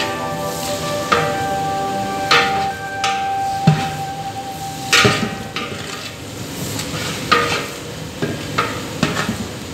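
Metal ladle stirring shallots, green chillies and curry leaves frying in hot oil in a large aluminium pot: a steady sizzle with a scrape or clink against the pot about every second or two.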